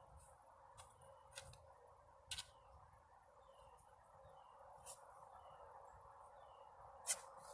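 Near silence outdoors: a faint steady hum, faint short falling chirps repeating every second or so, and a few sharp clicks, the loudest near the end.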